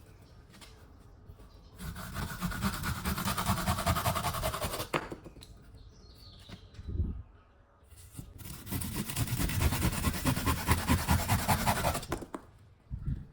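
Handsaw cutting wood in two runs of quick rasping strokes, one starting about two seconds in and another about eight seconds in.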